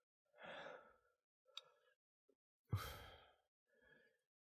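A man's quiet breathing: a few separate breathy exhales, the strongest starting sharply about three seconds in, with a short click near the middle.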